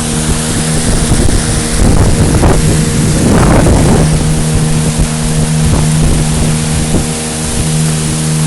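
Motorboat engine running steadily under way, with a louder rush of water and wind noise for a couple of seconds near the middle.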